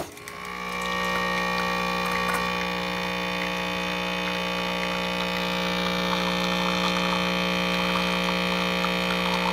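Capsule espresso machine's pump running with a steady buzzing hum while it brews coffee into a mug, coming up about half a second in. Light crackling joins in during the second half.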